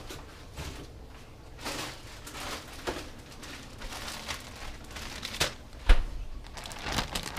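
Plastic bags rustling and crinkling as they are handled, with scattered light knocks and one sharp thump about six seconds in.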